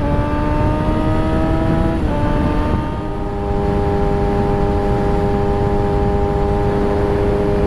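Yamaha R3's parallel-twin engine running at speed, its pitch sagging slightly, stepping down about two seconds in, then holding steady at cruising revs. Heavy wind noise runs underneath.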